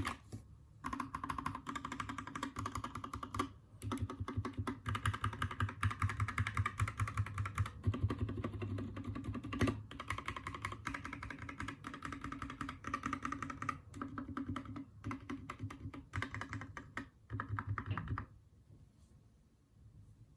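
Anne Pro 2 mechanical keyboard with Kailh Red linear switches, stock keycaps and no case foam, typed on in quick runs of keystrokes with brief pauses. The typing stops near the end.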